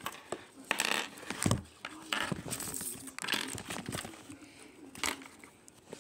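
Kinder egg foil wrapper crinkling and rustling as it is handled, in irregular bursts with small clicks and knocks.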